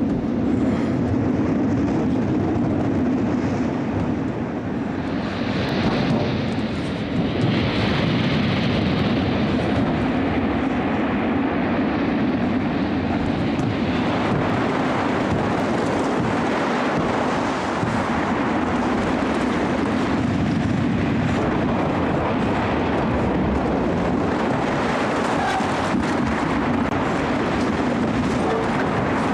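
Steady rumbling roar of a stormy sea, breaking surf and wind, with a constant low hum running under it. A brighter hiss swells about five seconds in and eases off about fourteen seconds in.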